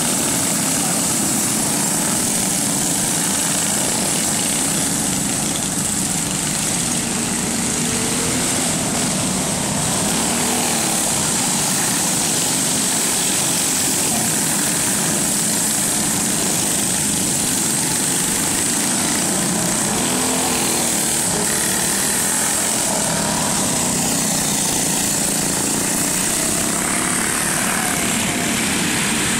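Several go-kart engines racing around a dirt oval, a continuous loud drone whose pitch rises and falls as the karts accelerate, lift and pass.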